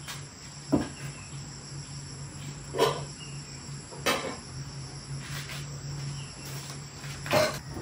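Insects chirring steadily in the background, broken by four short knocks or clatters spread across the few seconds.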